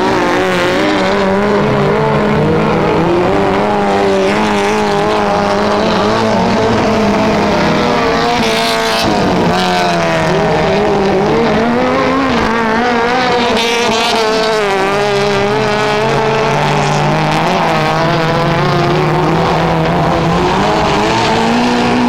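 Several autocross race cars' engines revving hard on a dirt track, their pitches rising and falling together and overlapping as the drivers work the throttle and change gear.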